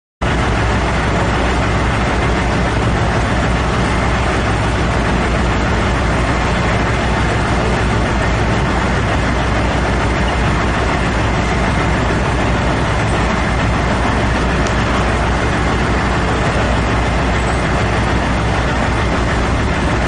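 Large mining dump truck's diesel engine running steadily, loud and unchanging.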